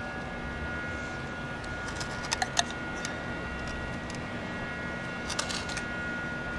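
Sharp clicks and light knocks from handling PVC pipe fittings and a can of PVC primer or cement: three in quick succession about two and a half seconds in, and a few more shortly before the end. A steady hum runs underneath.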